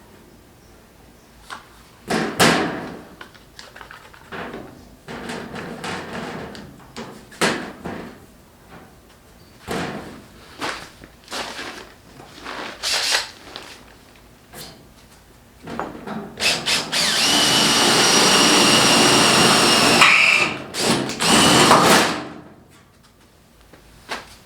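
Metal parts and tools being handled, with scattered knocks and clatters. Near the end a handheld power tool motor runs steadily for about four seconds, then briefly again.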